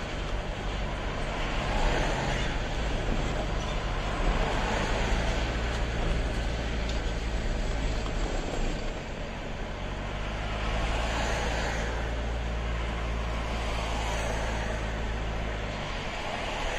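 Road noise heard inside a moving car at highway speed: a steady drone of tyres, engine and wind that swells a few times as other vehicles pass.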